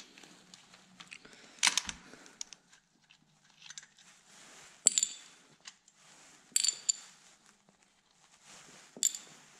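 Small steel bolts and washers clinking, about four sharp metallic clinks with a brief ring, spread over several seconds, with faint ticks and rattles of the socket tool between them.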